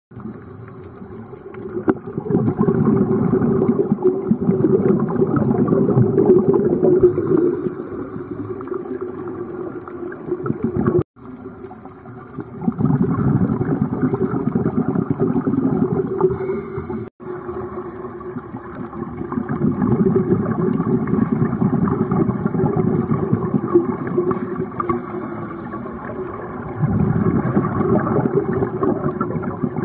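Underwater recording of scuba divers breathing: exhaled bubbles from their regulators rush and gurgle in swells a few seconds long, with a quieter water hiss between them. It cuts out briefly twice.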